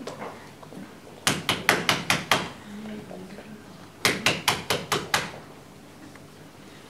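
Rapid knocking on a door, two runs of about six quick knocks each, a couple of seconds apart.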